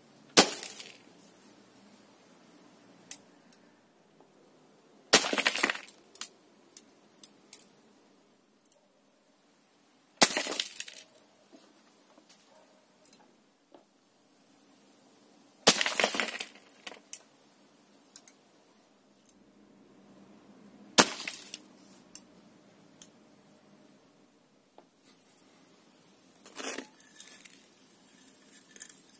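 Five hits, about five seconds apart, of plastic airsoft BBs fired from a Snow Wolf M24 sniper rifle striking a ceramic flower pot, each a sharp crack followed by chips and shards clattering down. Near the end, broken ceramic clinks as the pot is handled.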